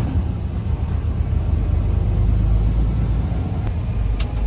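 Semi-truck's diesel engine running with a steady low rumble, heard from inside the cab; a couple of brief sharp clicks near the end.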